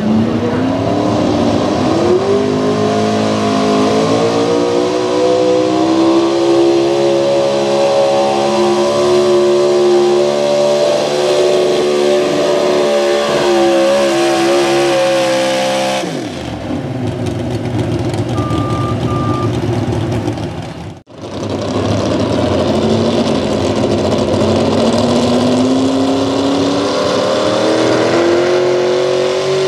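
Gasoline engine of an open-class 4x4 pulling truck at high revs under full load, dragging a weight-transfer sled; its pitch climbs in the first couple of seconds, holds high, then falls away a little past halfway as the pull ends. After a short break, another gas pulling truck's engine revs up, pitch rising toward the end.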